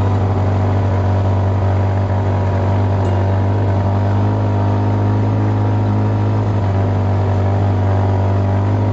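Polaris RZR side-by-side's engine running steadily, a constant drone with no change in pitch.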